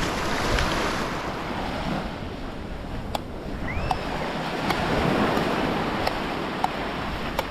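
Sea waves washing onto a sandy beach, with wind on the microphone. A few faint clicks and a short rising squeak about four seconds in.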